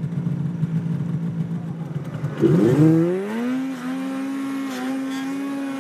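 Two-stroke snowmobile engine running at low revs, then throttled up about two and a half seconds in: the pitch climbs and the engine holds steady at a higher speed.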